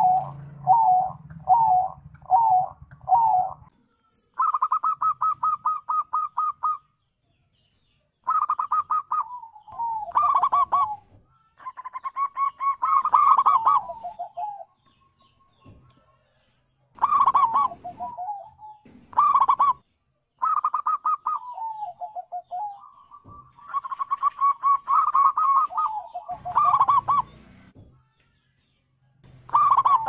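Zebra dove song: rapid runs of staccato cooing notes and quick trills, repeated in phrases with short silent breaks between them.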